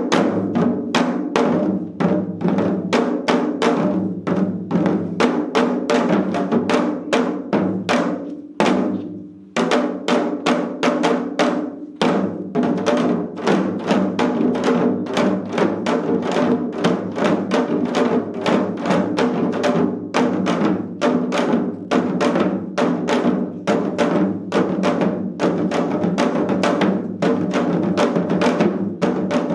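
Four janggu, Korean hourglass drums, played together in a fast seoljanggu rhythm of dense, rapid strikes. The playing drops away briefly about nine seconds in, then picks up again.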